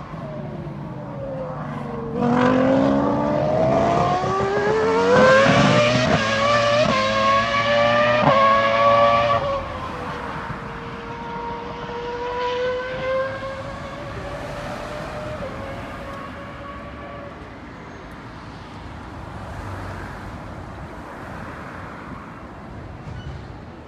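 Ferrari three-seater Formula 1 car's V10 engine, first dropping in pitch as it slows, then accelerating hard about two seconds in, its pitch climbing through several quick upshifts. Near ten seconds in it lifts off and the pitch falls, then the engine holds a lower note and fades away.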